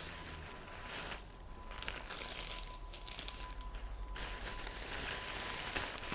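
A thin plastic carrier bag rustling and crinkling in stretches as paper-wrapped parcels are packed into it by hand. A faint steady high tone and a low hum sit underneath.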